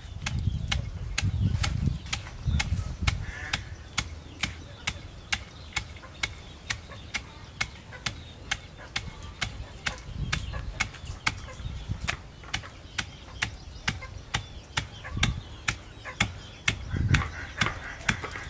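A wooden pestle pounding roasted peanuts in a stone mortar, crushing them coarse. It makes a steady run of sharp knocks, about two to three strokes a second, with dull thuds beneath.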